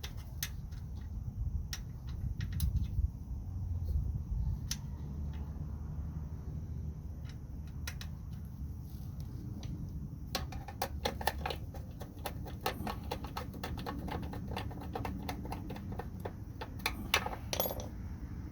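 Small metal clicks and taps from hand tools and parts while a recoil starter is fitted back onto a snowblower, turning into a fast run of rapid clicking about ten seconds in, like a ratchet driving the mounting screws.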